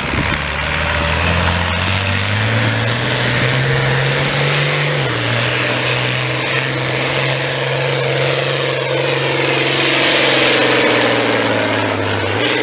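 Farm tractor's diesel engine running hard under full load, belching black smoke while it pulls a weighted sled down a tractor-pull track. The engine's pitch climbs over the first few seconds, drops suddenly about five seconds in, then holds steady.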